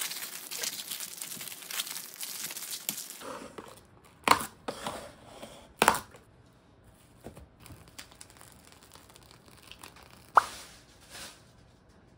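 Stiff paper crinkling as it is rolled up tightly by hand, then after a short pause a few sharp rasps of plastic cling film being pulled out and torn off on its box's cutter edge. One sharp click near the end.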